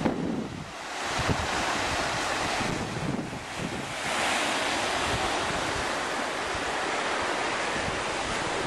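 Ocean surf washing onto a sandy beach, with wind buffeting the microphone. The wash of the waves grows louder about four seconds in.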